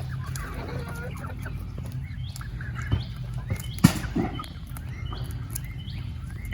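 Hens clucking in a backyard chicken run, with one sharp knock about four seconds in.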